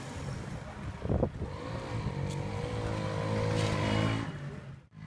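Motorcycle engine running and pulling away, its pitch rising as it accelerates, with a short louder burst about a second in; it cuts off suddenly near the end.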